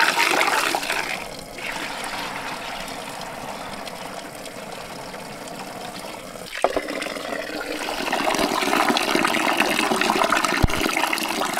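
Water running from a tap into an aluminium bowl of grain, with hands swishing and rubbing the grain in the water to rinse it. The pouring is quieter for a few seconds in the middle and louder again near the end, with one sharp click partway through.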